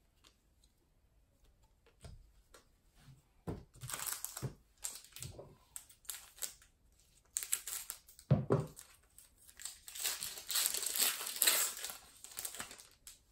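Foil trading-card pack wrapper crinkling as it is handled and cut open with scissors, with a thump about eight seconds in. The crinkling is thickest near the end as the wrapper is pulled apart.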